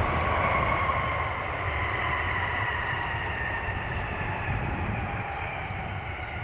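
Jet airliner's engines passing on landing: a rushing noise with a faint whine that slowly falls in pitch and fades.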